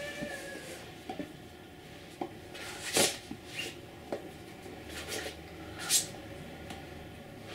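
Small incidental sounds of a person using sign language: hands tapping and brushing against clothing and each other, with faint mouth sounds. There are scattered soft clicks and two louder, sharp rustles, about three and six seconds in.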